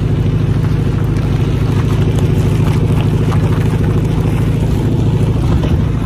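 1971 VW Beetle's rebuilt air-cooled flat-four engine running at a steady pitch as the car drives along, heard through the open window.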